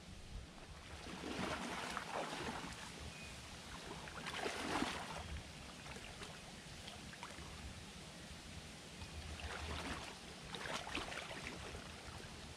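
Water sloshing and swishing around a wader's legs as he steps and turns in shallow water, in three bursts about a second or two long each.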